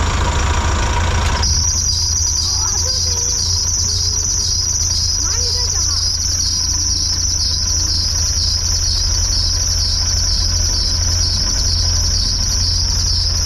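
Box truck engine idling, with a high-pitched, rapidly pulsing chirping squeal that sets in about a second and a half in and keeps going. It is the abnormal 'ji ji ji' noise the truck makes on start-up, and its cause is unknown to the owners.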